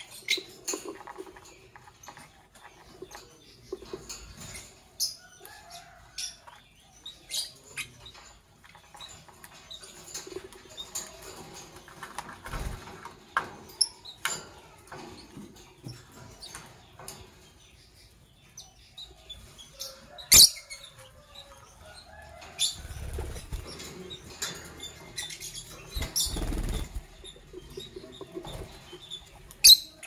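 Lovebird giving short, sharp chirps at irregular intervals, with feather rustling as it preens. The loudest chirps come about 20 seconds in and just before the end, with a few low thumps in between.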